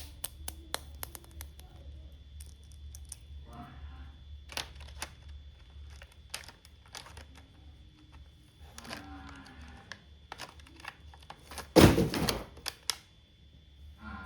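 Small plastic toy pieces being handled: a quick run of light clicks, then scattered taps and clacks. A louder thump with a rustle comes about twelve seconds in.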